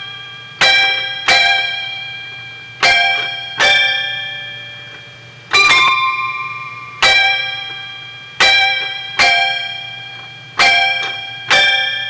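Slow instrumental music played back on a cassette tape deck: about ten single plucked notes, each struck sharply and left to ring and fade before the next. A steady low hum runs underneath.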